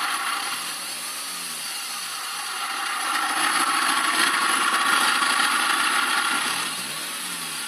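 Peugeot 306 HDi diesel engine running with a steady hiss and howl, the noise its owner is recording. It grows louder about three seconds in and eases back down near the end.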